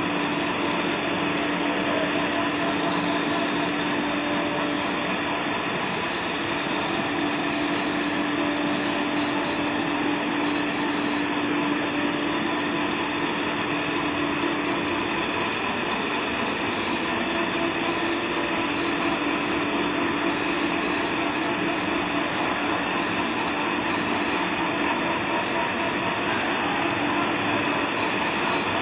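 Writing-paper rewinder machine running: a steady mechanical whir of rollers and motors with a low hum that fades and returns.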